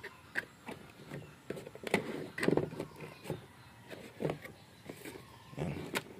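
A series of short light knocks and clicks, about a dozen, scattered irregularly through a quiet background.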